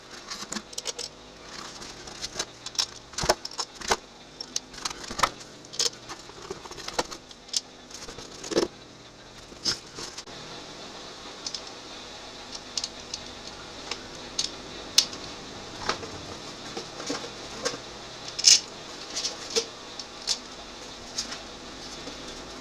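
Irregular metallic clicks and clinks of hand tools and bolts as bolts are put in and tightened on a motorcycle engine's top end, sped up so the strikes come quickly one after another.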